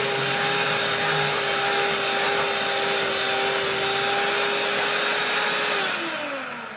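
Handheld electric mixer running at a steady whine, its beaters creaming cream cheese and peanut butter in a glass bowl. About six seconds in it is switched off and the whine falls in pitch and fades as the motor winds down.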